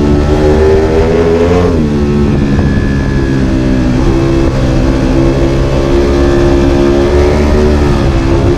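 Ducati Panigale V4 R's V4 engine running hard in second gear on track, heard from the bike itself over wind rush. Its pitch dips briefly about two seconds in, then holds steady with a slight rise near the end.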